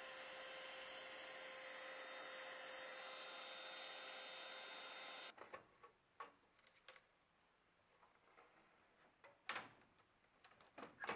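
A can of aerosol lubricant spraying in one steady hiss for about five seconds, then cutting off suddenly. After that come scattered light metal clicks and knocks from the vending machine's selection-button assembly as it is handled, with more of them near the end.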